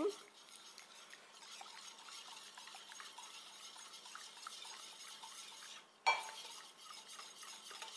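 Wire whisk stirring a thin peanut butter and soy sauce sauce in a glass bowl, with faint steady scraping and small ticks of the wires against the glass, breaking the peanut butter up so the sauce turns smooth. A sharper ringing clink on the glass about six seconds in.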